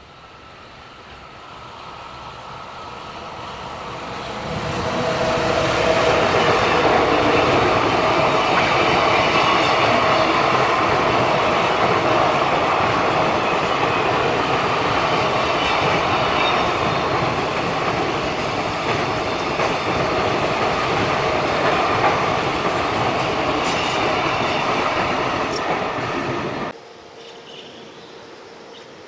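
Freight train running past on the rails: the wheel-and-rail noise builds over the first five seconds, then holds loud and steady with some ringing squeal from the wheels, and cuts off abruptly near the end.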